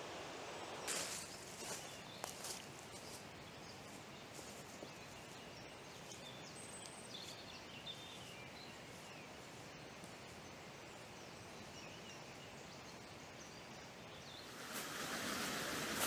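Quiet woodland ambience: a faint steady outdoor hiss with a few rustling footsteps on the leafy path in the first seconds and a few faint, high bird chirps. Near the end a louder, steady rush of river water comes in.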